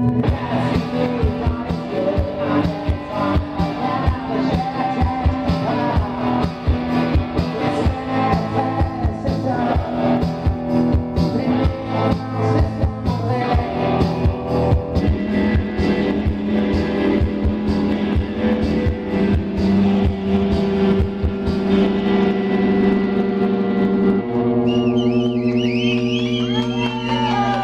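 Live rock band playing: keyboards and electric guitar over a drum beat, with held chords. The drum strokes thin out about fifteen seconds in, and wavering high gliding tones come in near the end.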